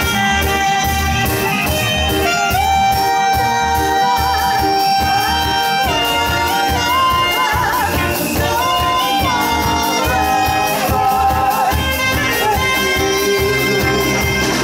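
Saxophone playing a melody over a live band with a steady kick-drum beat; about three seconds in it holds one long note for a few seconds, then moves into shorter, wavering phrases and further held notes.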